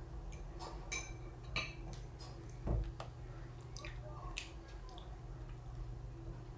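Scattered light clinks and ticks of small hard objects over a steady low hum, with one dull thump a little under three seconds in.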